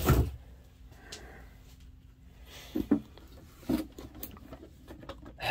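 A boxed action figure's cardboard box with its plastic window being picked up and handled: a few light knocks and rustles against a quiet room, the sharpest about three seconds in.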